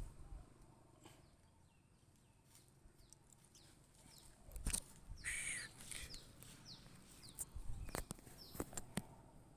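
Birds calling faintly: short falling chirps repeated through the second half, one louder harsher call about five seconds in, with a few sharp knocks.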